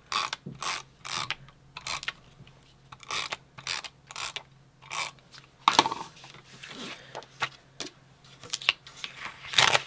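Adhesive tape runner swiped across the back of a paper strip in a series of short strokes, each a brief rasping, ratcheting swipe, roughly one or two a second.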